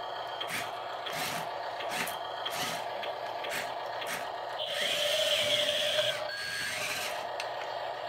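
Small RC skid steer loader's electric drive motors and plastic gears grinding as it pushes its bucket into sand, with a rhythmic rasp about twice a second. A steadier whine joins for a second or two partway through.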